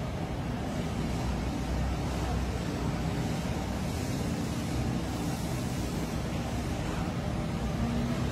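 Steady low rumble of motor traffic, with engine hum and no distinct events.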